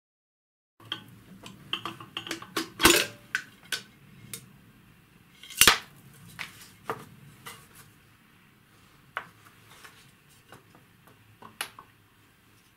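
Metal parts of a vintage Smiths sensitive altimeter clicking and knocking as its mechanism is handled and worked out of its case. Two loud knocks come about three and six seconds in, followed by scattered lighter clicks.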